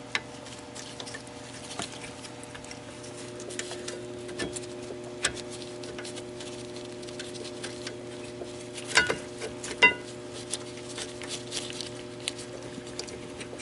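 Light metallic clicks and rattles as brake caliper slide pin bolts are threaded in by hand, with two sharper, briefly ringing metal clinks about nine and ten seconds in. A steady faint hum runs underneath.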